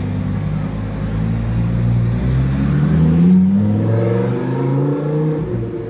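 Lamborghini Huracán Performante's V10 accelerating away from close by. A low rumble turns into rising revs about two seconds in, loudest just after three seconds, where the pitch drops at an upshift and then climbs again.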